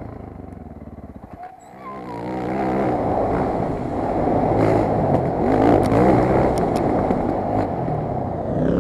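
Off-road motorcycle engine revving up and down while riding a dirt track, with scattered rattles and knocks. The sound drops away briefly about a second and a half in, then comes back louder.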